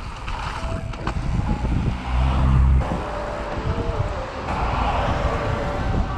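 Wind buffeting an action camera's microphone while a mountain bike rolls along asphalt, with tyre rumble underneath. The rush is strongest a little past two seconds in, and the sound changes abruptly twice.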